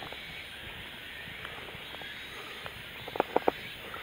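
Faint, steady lapping of water around a float tube, with three quick clicks in a row about three seconds in.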